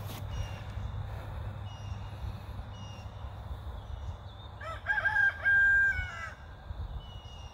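A rooster crows once about five seconds in: a few short rising notes running into a long held note, about a second and a half in all. Faint, short high chirps come and go throughout over a steady low rumble.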